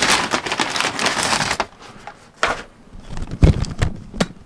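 Paper take-out bag and wrappers rustling and crinkling as they are handled, densely for the first second and a half, then in scattered short rustles and clicks, with a low thump about three and a half seconds in.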